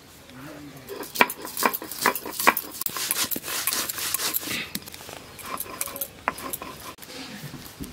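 Stone grinder scraping and knocking against a flat stone grinding slab (shil-nora) as spice seeds are ground by hand: an irregular run of gritty rubs and sharp clicks.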